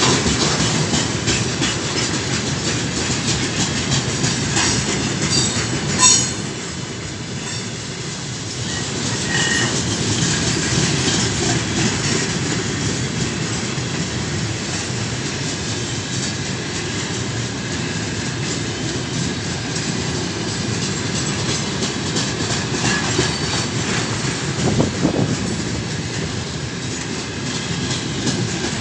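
Freight train tank cars rolling past close by, the wheels clattering over the rail joints in a steady clickety-clack over a continuous rumble. There is a single sharp bang about six seconds in.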